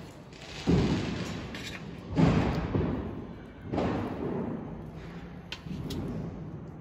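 Firecrackers going off: three heavy booms about a second and a half apart, each dying away over roughly a second, with fainter sharp cracks near the end.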